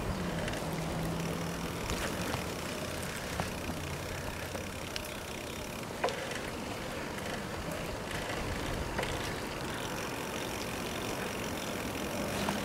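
Riding noise from a Giant FastRoad Advanced 1 bicycle heard at its handlebars: steady wind and tyre rush on a paved path, with a low hum in the first few seconds and a few sharp clicks.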